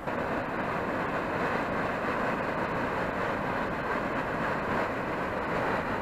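Muddy floodwater of a typhoon-swollen river rushing past in a steady, even noise with no breaks.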